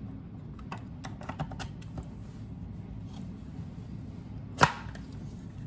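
Small plastic clicks and taps of a baby car mirror's strap clips being handled, then one sharp plastic snap about four and a half seconds in as a clip clicks into the back of the mirror.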